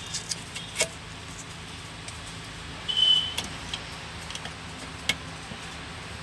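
Small clicks and taps of a horn contact wire and its terminal being handled and pushed into the horn clip slot on a steering column, with a brief high squeak about three seconds in. A steady low hum runs underneath.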